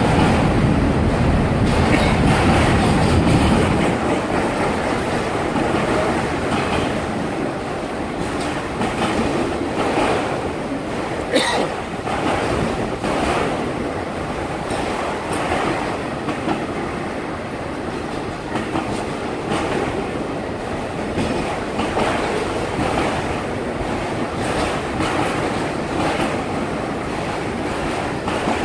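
Autorack freight cars rolling past, their steel wheels clicking over rail joints. The low rumble is heavier for the first few seconds, and there is one brief sharp sound about eleven seconds in.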